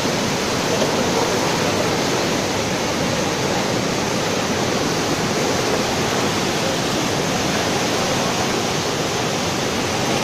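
The flooded Kifisos river, a muddy torrent in spate after heavy rain, rushing in a steady, loud, even wash of water noise.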